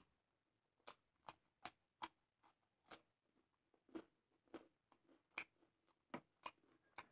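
Close-up mouth sounds of chewing: a series of short, faint, wet clicks, irregular, about two a second.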